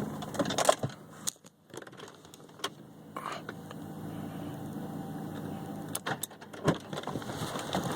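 Audi car engine running with a steady low hum, over which come scattered sharp clicks, knocks and rattles like keys or a door being handled.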